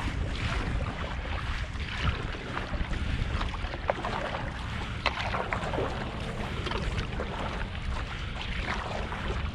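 Wind buffeting the microphone, with small waves lapping and splashing against the hull of an Old Town Penobscot 164 canoe drifting on choppy water.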